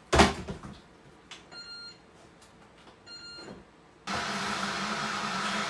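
Electric kettle being set going: a sharp clunk, then two short electronic beeps from its controls, and about four seconds in the kettle starts heating with a sudden steady hiss and low hum.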